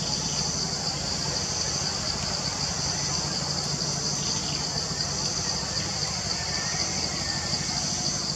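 Steady, high-pitched drone of a cicada chorus with a slight pulsing, over a low steady hum.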